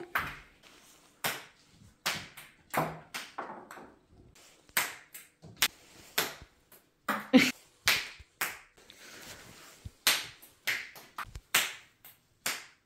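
A ping-pong ball being batted and bouncing across the floor as a cat dribbles it: an irregular run of light, sharp clicks, some coming in quick clusters.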